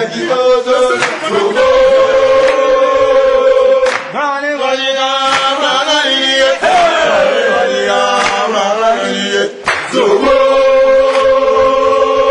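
Choir singing, holding long notes, with short breaks about four and ten seconds in.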